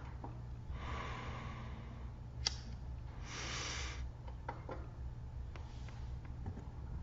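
Plastic CD cases being handled: two soft rustling scrapes about a second each, a sharp click between them, and a few lighter clicks later, over a low steady hum.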